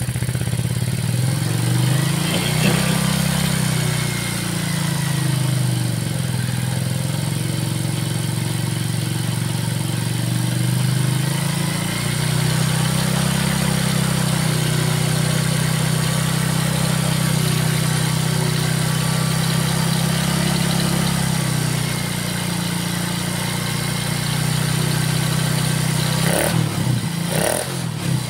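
Yamaha Vega Force single-cylinder four-stroke motorcycle engine running after a top-end rebuild. The engine speed rises and falls several times, holds steady through the middle stretch, and there are some clattery knocks near the end. The mechanic judges the engine sound smooth now, with its rough knocking under throttle cured.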